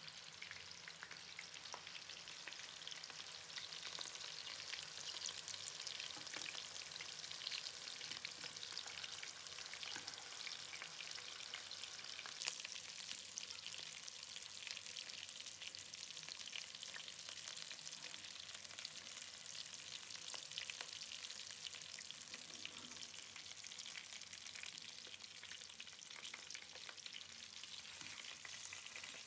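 Tabrizi meatballs frying in hot oil in a pan: a steady sizzling, crackling hiss, with scattered light clicks as a metal spoon turns them against the pan, one sharper about twelve seconds in.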